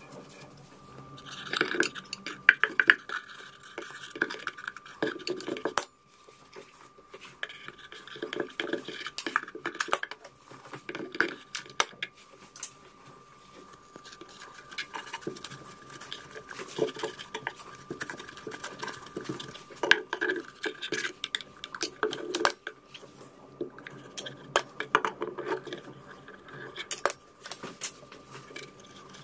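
Hand-work on a wooden subwoofer cabinet: scattered light knocks, clicks and rustling as the cabinet is brushed off and then lined with soft wadding. A faint steady tone runs underneath from about a second in.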